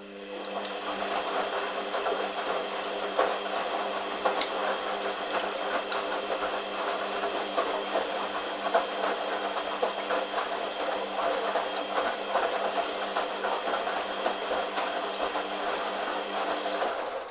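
Hoover washing machine moving water during its final rinse: a steady mains hum with water rushing, switching on at once and cutting off abruptly near the end.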